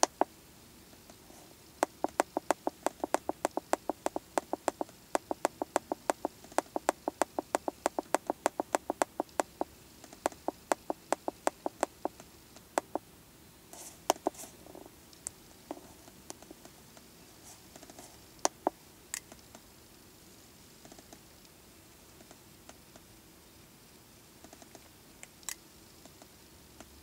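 Keypad buttons of an Autel MaxiDiag Elite MD702 handheld scan tool clicking as a menu is scrolled: a fast even run of about four presses a second for some ten seconds, then a few single presses.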